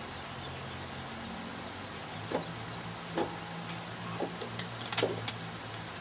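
Scattered sharp clicks and knocks of hand tools working on the engine, coming more often near the end, over a steady low hum.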